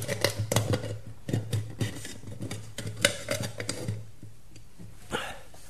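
A tin can being opened: a run of sharp metallic clicks and scrapes for about four seconds, then a single brief noise near the end.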